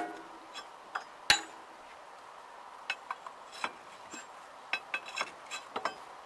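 Steel hand tools clinking and knocking against the steel hub of a T-25 tractor's rear final drive during dismantling: one sharp metallic knock about a second in, then scattered lighter clinks.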